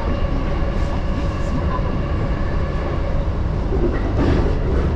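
Chuo Line Rapid electric commuter train running at a steady speed, heard from inside the train: a continuous low rumble of wheels on the rails with a steady motor hum over it.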